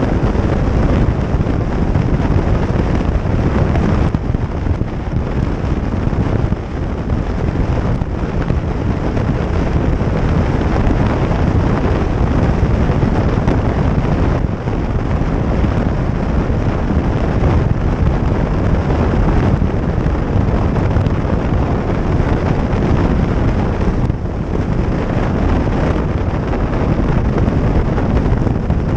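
Wind rushing over the microphone of a moving motorcycle, a loud steady low roar with motorcycle and road noise underneath.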